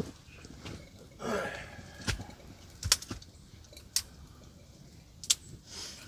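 Wood campfire crackling: a few sharp, scattered pops over a low background.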